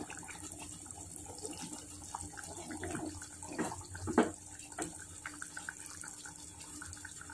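Sardine curry simmering and sloshing in a clay pot as the pot is swirled by hand. A few knocks sound near the middle, the loudest about four seconds in.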